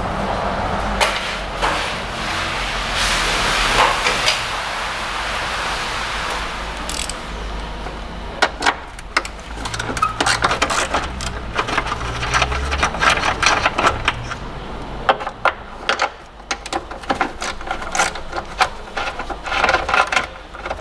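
Hand ratchet clicking in quick runs as nuts are undone. It follows a few seconds of hissy rushing noise.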